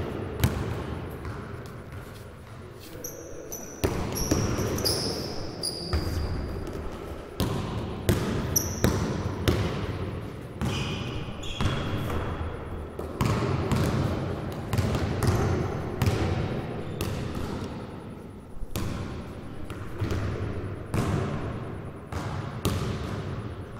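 Basketballs bouncing on a gym floor in irregular thuds that ring in the large hall, with a few short high sneaker squeaks.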